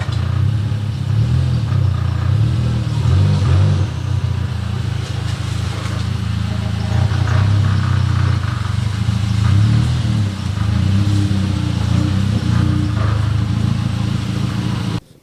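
Dodge Caliber SRT4's turbocharged 2.4-litre four-cylinder engine running while the car is driven, a steady low drone. It cuts off suddenly near the end.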